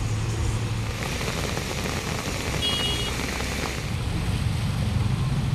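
Road traffic on a flooded street: bus engines running and tyres swishing through standing water, with a brief high beep about halfway through.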